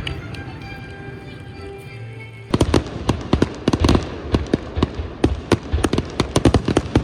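Fireworks display: music with steady tones, then about two and a half seconds in, a rapid run of sharp crackling fireworks bangs takes over.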